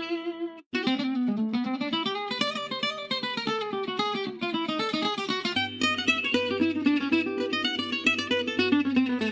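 Background music of quickly plucked acoustic guitar, with a short break less than a second in.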